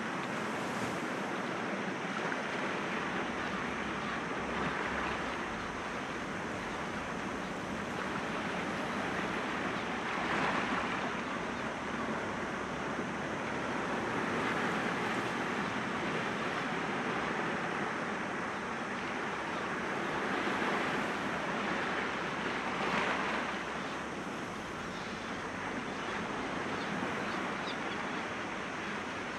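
Sea waves breaking gently against rocks: a steady wash of surf that swells every few seconds.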